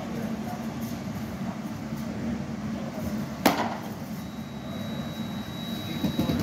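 A single sharp pop of a baseball smacking into a leather glove, about three and a half seconds in, over a steady low room hum. A faint thin high tone starts just after it.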